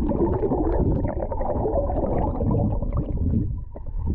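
Water churning and bubbling, heard underwater through a submerged camera, as a hand and a landing net move a brown trout through the water: a dull, muffled rush with small clicks and ticks of bubbles.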